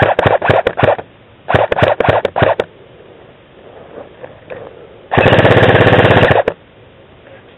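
Airsoft guns firing: two short quick strings of shots in the first few seconds, then one rapid full-auto burst of about a second and a half near the end.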